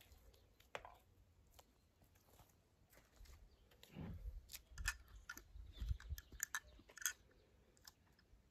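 Near silence at first, then from about four seconds in a scatter of faint clicks and low scuffs: a small die-cast toy car being picked up and handled.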